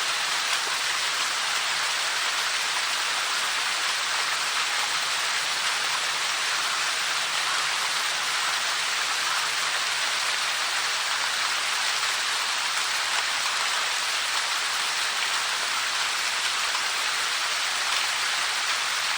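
Water of a 30 m waterfall falling and splashing, a steady even hiss with no change in level.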